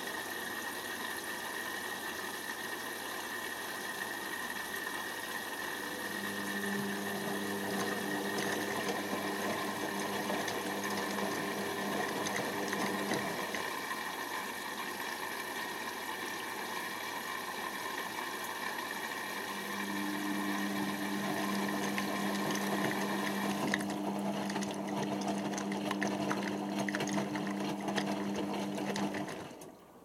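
Indesit IWC6165 washing machine in its first rinse: the drum motor turns the load with a steady hum while water swishes in the drum. The motor hum drops out for a few seconds midway, then resumes, and the whole sound cuts off suddenly just before the end.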